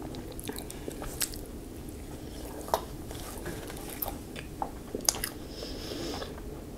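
Close-up eating sounds: chewing a bacon burger, with scattered wet mouth clicks and smacks.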